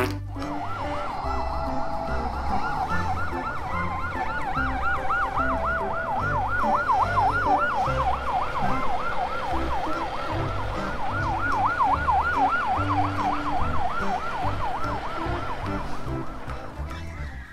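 A siren in a fast yelp, its pitch sweeping up and down several times a second. It starts about half a second in and fades near the end, over a steady low beat.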